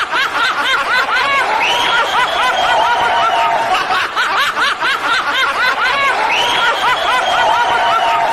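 Rapid, very high-pitched giggling: quick repeated squeaky 'hee' sounds, twice broken by a long held squeal. The same giggle-and-squeal pattern comes round twice.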